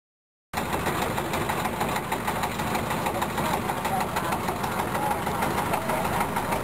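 A boat engine running steadily and loudly, heard from on board while the boat moves over choppy open water; it cuts in abruptly out of silence about half a second in.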